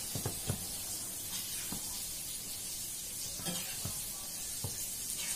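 Hands smoothing and patting a stack of fabric laid on a tiled floor: soft rustling over a steady hiss, with a few light taps.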